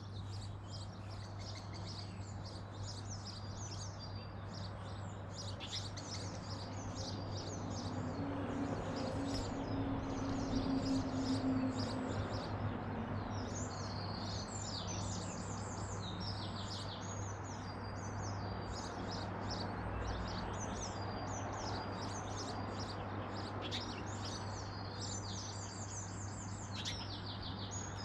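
Several small garden birds chirping and singing in quick, overlapping trills and calls, over a steady low hum. A low drone swells and fades near the middle.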